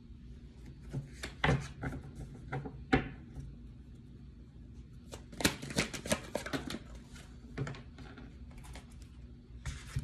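Cards being handled, flipped and laid down on a tabletop: scattered short clicks and slaps in small clusters, busiest a little past the middle.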